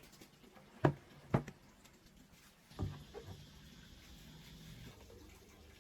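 Two sharp knocks about half a second apart, then a duller thump, followed by faint rustling.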